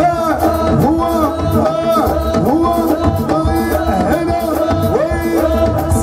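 Live Moroccan chaabi band playing: a violin and voice carry a melody over hand-drum rhythm, bass guitar and keyboard.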